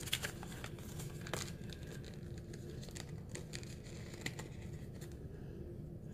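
Cosmetics packaging being opened by hand: a blush compact worked out of its cardboard box, with crinkling, light tearing and scattered small clicks, busiest in the first couple of seconds.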